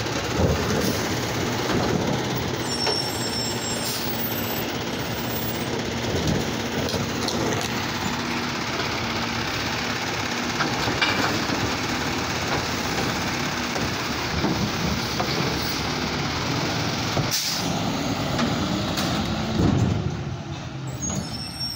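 Automated side-loader garbage truck working at the curb: its engine and hydraulics run steadily while the arm lifts a trash cart and tips it into the hopper, with several sharp knocks of the cart and arm. The sound falls off about twenty seconds in as the truck moves away.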